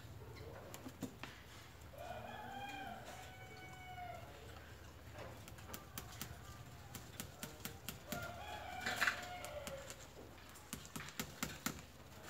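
A rooster crowing twice, each crow lasting about a second and a half, once about two seconds in and again about eight seconds in. Between and after them come light clicks and rustling from hands handling orchid canes and ties against a tree trunk.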